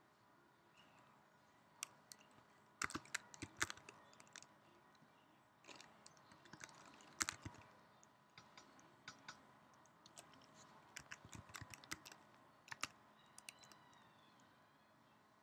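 Faint typing on a computer keyboard with clicks, in irregular bursts of keystrokes separated by pauses.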